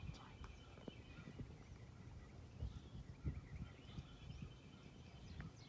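Quiet background noise with irregular soft, low thumps and a few faint clicks.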